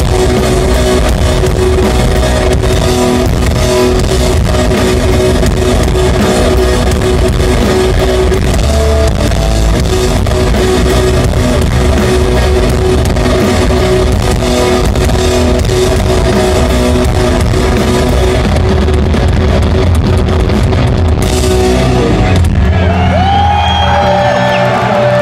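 Rock band playing loud and live: distorted electric guitars, bass and drum kit. About 21 seconds in the full band stops, and a few sustained guitar tones ring on, wavering in pitch, as the song ends.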